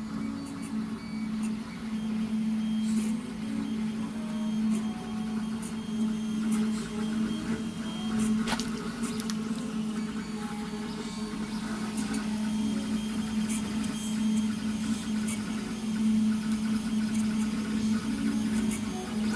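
MINGDA MD-6C FDM 3D printer running a print: a steady low hum with the stepper-motor whine rising and falling as the print head moves back and forth, and the odd faint tick.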